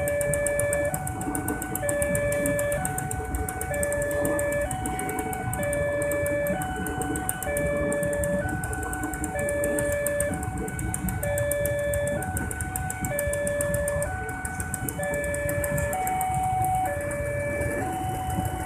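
Level-crossing alarm sounding: an electronic chime alternating between two notes in a steady repeating pattern, over the continuous low rumble of a passenger train running past.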